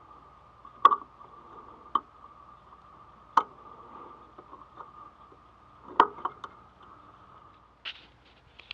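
A steady high hum with five sharp knocks, the loudest about a second in and about six seconds in, as of parts being fitted during front-end suspension work; short chirps near the end.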